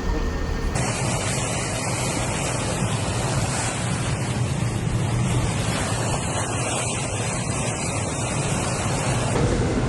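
Steady, loud rush of heavy rain and flowing floodwater, with wind on the microphone. The noise changes character abruptly about a second in and again near the end.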